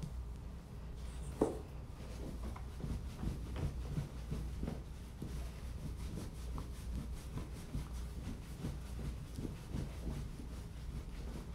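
A towel rubbing over a wet Doberman puppy's coat as it is dried after its bath: a run of soft, irregular scuffing rubs, with one sharp knock about a second and a half in.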